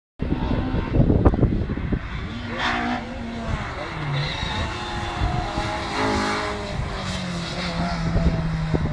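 Rally car engine revving hard through tight bends, its pitch rising and falling repeatedly as the driver lifts and gets back on the throttle. Low rumbles of wind on the microphone about a second in.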